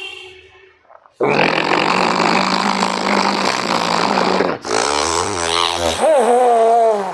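Ujjayi pranayama breathing: a long, rasping, snoring-like breath through a narrowed throat starting about a second in and lasting over three seconds. After a brief break comes a breath with the voice in it, wavering in pitch.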